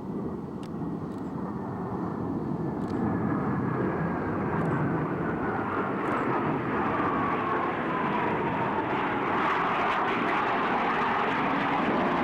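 Blue Angels F/A-18 Hornet jet passing: a steady jet roar that grows louder, with a turbine whine falling steadily in pitch as it goes by.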